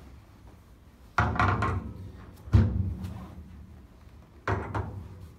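Three heavy thunks during a chiropractic decompression, each sudden and dying away briefly, spaced about one and a half to two seconds apart.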